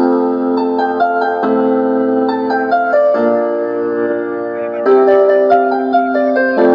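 Music: sustained electric-piano chords that change every couple of seconds, with short higher notes picking out a melody above them.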